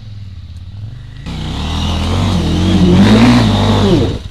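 Motorcycle engine running at first, then revved hard from about a second in. Its pitch rises and falls for a few seconds before stopping abruptly near the end.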